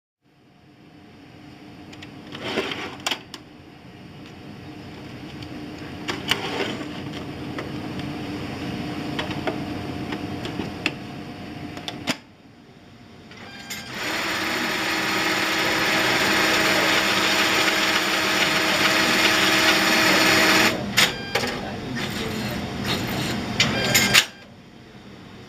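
Puloon UCDM cash dispenser module running: a steady motor whir with occasional sharp clicks of the mechanism. It dips briefly about halfway, then runs louder for about seven seconds, and after a few more clicks drops away near the end.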